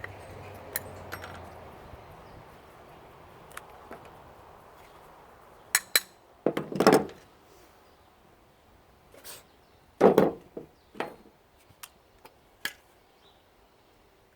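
Scattered clinks and knocks of tools and the metal and plastic parts of an electric steam iron being pried apart and handled, with two heavier thuds about six and a half and ten seconds in.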